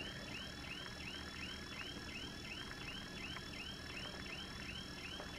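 Car alarm siren sounding faintly in a fast, even run of rising-and-falling whoops, about four or five a second. The alarm is thought to have been set off by fireworks.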